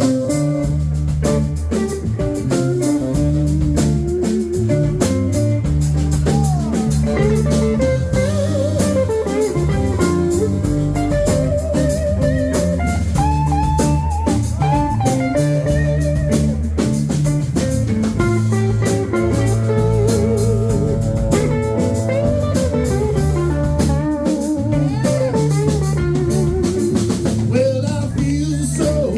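Live band playing: a guitar carries a lead line that bends and wavers in pitch over bass and drum kit.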